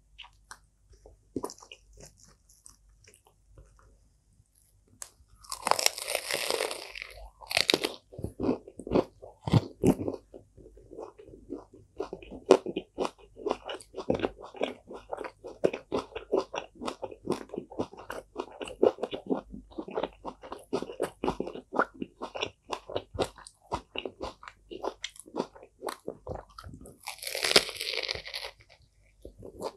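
Close-miked eating of a lettuce wrap with crispy pork and raw salad: a loud crunchy bite about six seconds in, then steady crunching and chewing, and another crunchy bite near the end.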